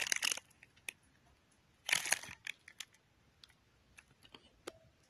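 Thin plastic bag crinkling as a small remote sealed inside it is handled, with a louder rustle about two seconds in and scattered small crackles in between.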